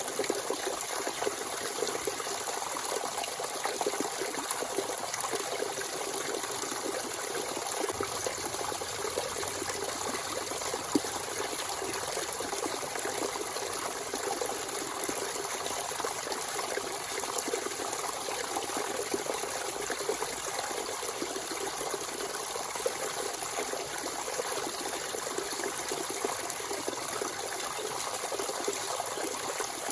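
Natural spring water flowing and trickling steadily, a continuous splashing rush. A brief click stands out about eleven seconds in.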